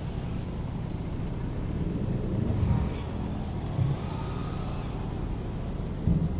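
City background ambience of steady road-traffic rumble, with a couple of brief low thumps.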